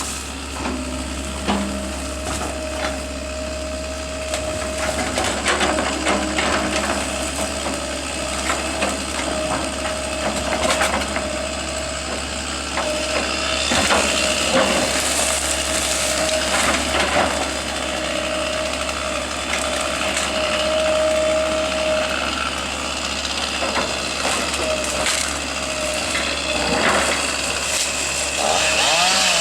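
Wood cracking and crunching in irregular knocks over the steady hum of running machinery.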